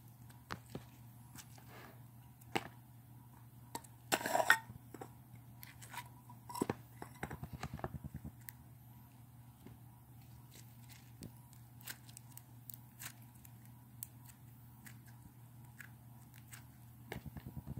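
Slime being squished and stretched by hand: scattered sticky clicks and pops, a louder crackly burst about four seconds in, and a quick run of small pops around seven to eight seconds, over a low steady hum.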